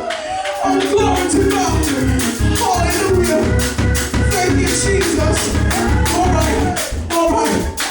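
Gospel music: voices singing over rattling tambourine-like percussion, with a low steady beat coming in about a second in.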